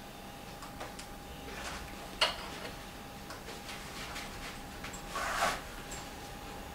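Hand-stitching a shoe welt with waxed thread: scattered light ticks with one sharp click about two seconds in, then a short rasp near the end as the thread is drawn tight through the leather.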